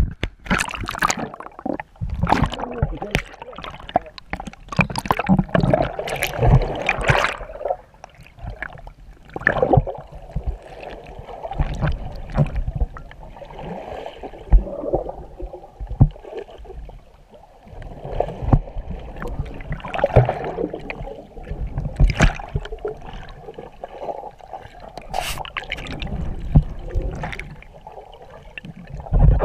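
Water gurgling and sloshing around an underwater camera while snorkelling, with irregular clicks and low thumps.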